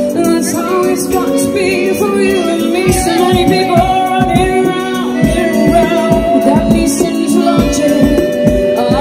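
Live pop band playing through a concert PA, with a woman singing lead over held synth chords. A steady kick-drum beat comes in about three seconds in.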